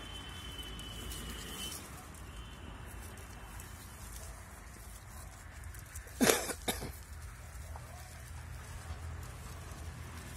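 Two short, loud animal calls close together about six seconds in, over a faint outdoor background with a thin, steady high whine during the first few seconds.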